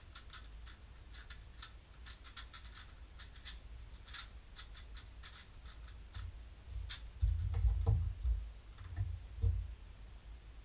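Light, irregular plastic clicks of a 3x3 speed cube being handled and turned in the hands. A few dull thumps follow about seven to nine and a half seconds in.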